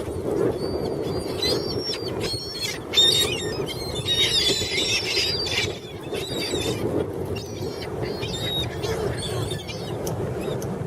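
A flock of seagulls crying over and over in short, high, squealing calls that overlap, busiest about three to six seconds in, over a steady background rush.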